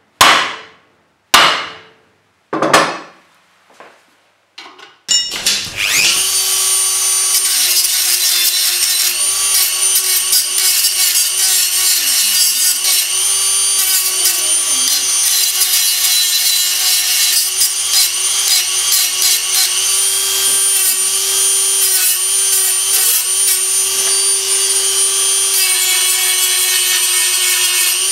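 Five hammer blows on steel held in a bench vise, each ringing briefly, the last two lighter. Then, about five seconds in, a Dremel rotary tool starts up and runs steadily with a high whine, its abrasive cut-off wheel grinding into a steel bar, the pitch dipping now and then under load.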